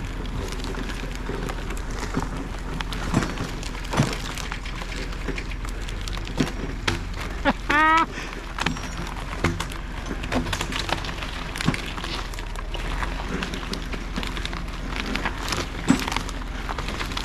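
A tractor engine runs steadily under scattered cracks and snaps of wood and brush. A short pitched squeal comes about eight seconds in.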